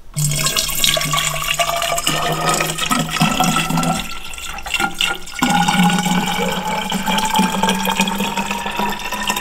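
Deionised water poured from a plastic jug into a BMW E30's coolant expansion tank, running in steadily with a pitch that rises as the tank fills. It breaks off about five seconds in, starts again and rises once more. The cooling system is being filled with deionised water to flush it.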